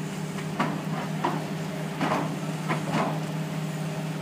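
Steady low drone of a fire engine's engine and pump running, with about five short spurts of hose spray hitting the burning car.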